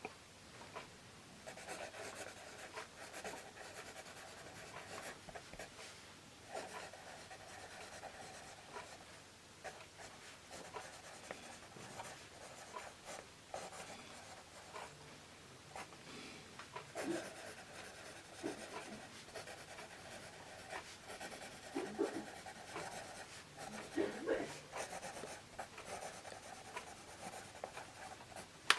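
Vintage Scripto 77 mechanical pencil with HB graphite lead writing on paper, its lead faintly scratching across the page in a run of short, uneven strokes.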